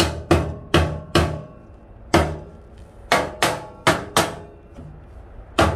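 Wooden mallet knocking a tight-fitting steel frame into a wood stove's firebox opening: about nine sharp knocks in uneven groups, each with a short metallic ring.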